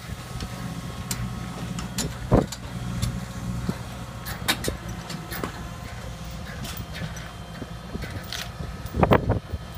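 Tracked excavator's diesel engine running steadily while it holds a steel trench box on lifting chains, with a few sharp knocks from the steel and chains, the loudest about two seconds in and near the end.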